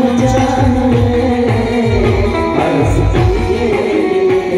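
Garba music played by a live band: a steady drum beat under a melody, with a woman singing.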